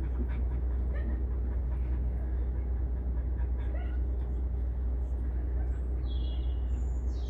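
A steady low rumble throughout, with a few faint ticks, and near the end a short high-pitched animal call, held briefly and then dropping in pitch.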